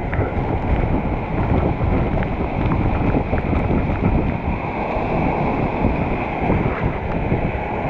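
Waterfall in high flow: a steady, loud rush of falling water.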